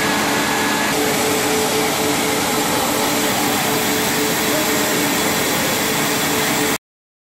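Machinery of a plastic extrusion line running: a loud, steady whirring rush with a constant hum underneath, cut off abruptly near the end.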